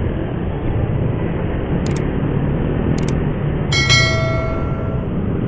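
Steady motorcycle ride noise from engine and wind, heard from the bike's camera mic. Over it, two crisp mouse clicks about 2 and 3 seconds in, then a bright bell chime rings out near the end: a subscribe-and-notification-bell sound effect.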